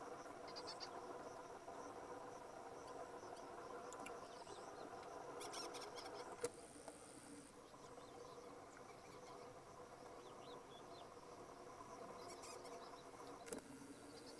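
Faint outdoor ambience: scattered short, high insect-like chirps over a steady low hum, with two sharp clicks, one about halfway through and one near the end.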